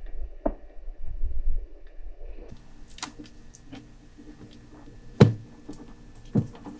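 Handling noise from a hand and cloth inside a plastic kitten incubator: low rumbling thumps, then a steady low hum with a few sharp knocks, the loudest about five seconds in.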